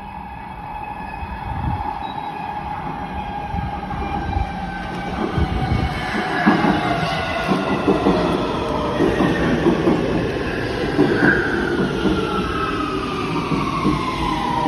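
Warsaw metro train pulling into the station and slowing down: an electric whine in several tones falls steadily in pitch as it slows, over the rumble and clatter of wheels on the rails, which grows louder about halfway through.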